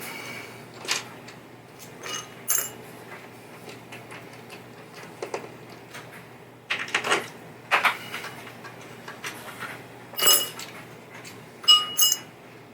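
Small metal parts clinking and clattering as they are handled: a series of separate sharp clinks and knocks, a few of them ringing briefly like struck metal, the loudest near the end.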